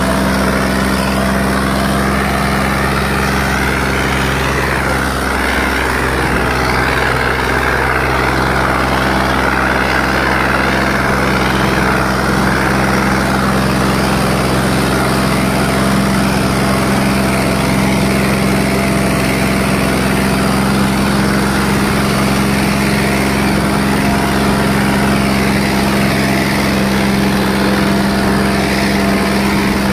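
John Deere 5210 tractor's three-cylinder diesel engine running at a steady pitch under heavy load, pulling a disc harrow.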